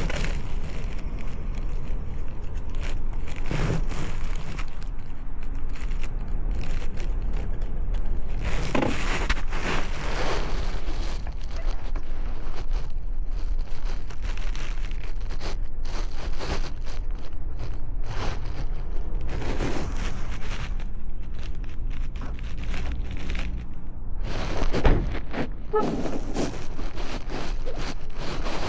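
Wind rumbling on the microphone, with irregular crunching and rustling from walking and handling the camera.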